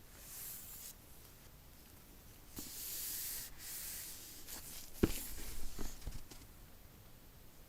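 Hands handling an Apple Magic Keyboard and its packaging: soft rubbing and sliding, then a few light knocks in the second half.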